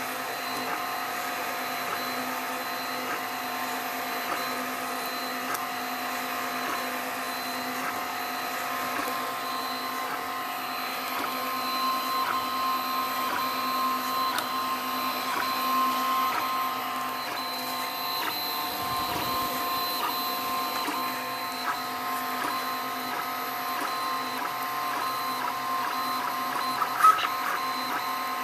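3D printer at work: its stepper motors whine in several steady and slightly shifting tones as the print head moves back and forth laying down the part, over a light steady hiss. Small ticks come and go, with one sharper tick near the end.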